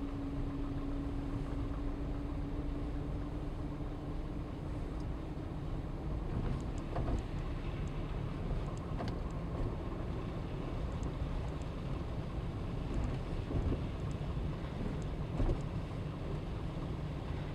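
A car driving slowly over a snow-covered street, heard from inside the cabin as a steady low engine and road rumble. A steady hum fades out in the first few seconds, and a few faint clicks come through.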